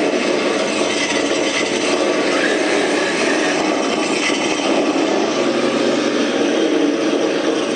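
Simulated Ford Mustang Cobra engine sound from an ESS-One engine sound unit, played through its speaker and running steadily with a buzzy, speaker-like tone.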